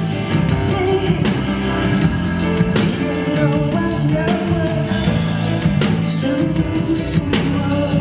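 Live rock band music, with drums striking a regular beat over a bass line and sustained keyboard-like tones.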